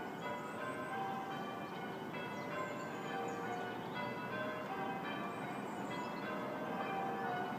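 Church bells ringing a continuous peal, one ringing strike after another overlapping. Songbirds chirp high above the bells now and then.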